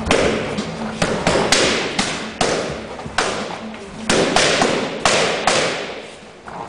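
Boxing gloves hitting focus mitts: about a dozen sharp smacks, some in quick combinations, echoing in the gym.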